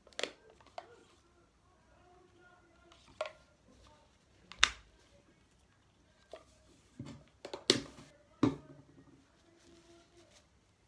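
Sharp clicks and taps from handling a plastic bottle of nail polish remover and a paper tissue while taking polish off fingernails. The taps are spread out, with the loudest about halfway through and a quick cluster near the end.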